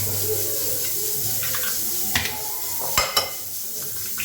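Eggs being stirred in a mixing bowl with a utensil, scraping and clinking against the bowl. Sharp knocks come about two seconds in and again about three seconds in.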